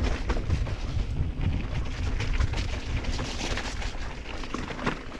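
Mountain bike rolling down a dirt trail: wind buffeting the camera microphone, with the rumble of tyres on the ground and a constant clatter of the bike over rough terrain.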